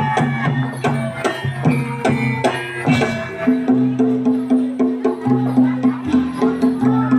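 Javanese traditional ensemble music for a kuda lumping (jaran kepang) horse dance, played live: a steady quick beat of drum and wood-block-like strokes over held low tones and short pitched notes.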